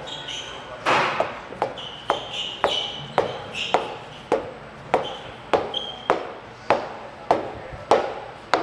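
A mallet striking a metal shaft-coupling hub again and again, about one and a half blows a second, to drive the hub onto a pump shaft. Some blows leave a short metallic ring.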